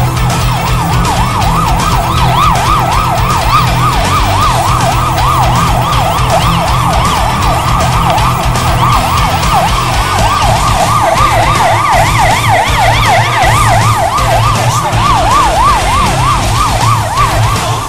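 Emergency vehicle siren in yelp mode, its pitch sweeping rapidly up and down about three times a second. A second, higher-pitched yelping siren joins for a few seconds past the middle, over a steady low hum.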